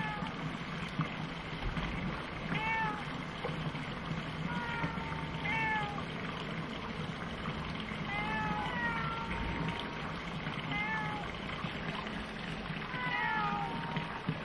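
A cat meowing again and again: short, high, arching mews every one to three seconds over a steady background hiss.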